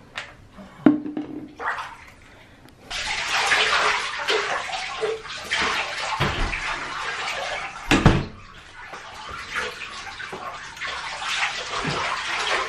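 Water running in a bathtub, starting about three seconds in and going steadily, with a few knocks in the first two seconds and a thump about eight seconds in.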